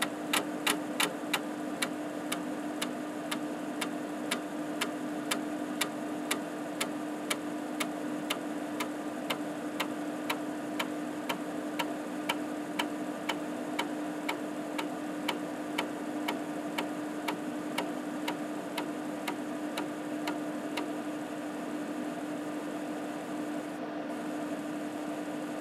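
5.25" floppy drive of an Epson SD-800 running a linear verify: the head steps one track at a time and reads each track, giving a regular click about two and a half times a second over the steady hum of the spinning disk.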